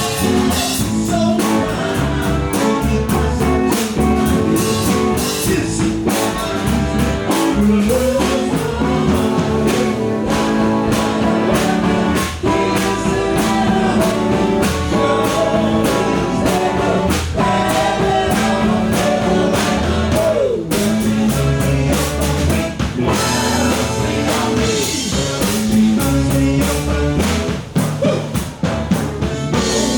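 Live band playing a soul-rock song, with drum kit and guitar keeping a steady beat and a melody line over it.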